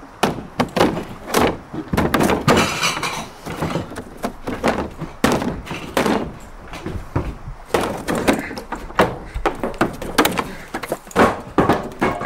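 Repeated thuds and cracks as the board nailed over a wooden shed's window is hit and torn out from inside, with a longer crashing, splintering stretch a few seconds in.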